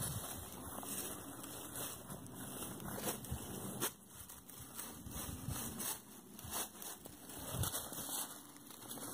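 Footsteps crunching through dry fallen leaves, an irregular run of crackling and rustling with sharper snaps now and then.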